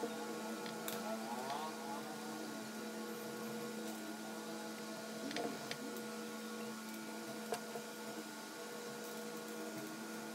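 A steady electrical hum, several tones held together with some switching on and off, with a few faint ticks over it.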